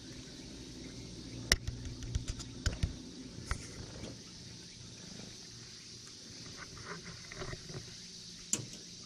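Close handling noise: sharp knocks and rustles as a cat rubs against the camera while a hand strokes its fur, loudest about a second and a half in, with another knock near the end. A low steady hum runs under the first few seconds.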